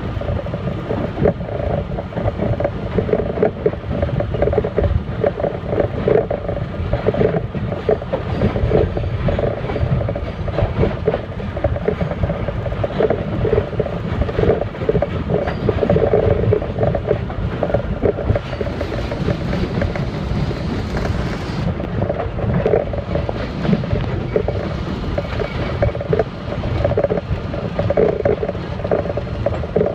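R32 subway car running along the track, heard from inside at the front window: a steady rumble and rattle of wheels on rail and the car body. A higher hiss joins briefly about two-thirds of the way through.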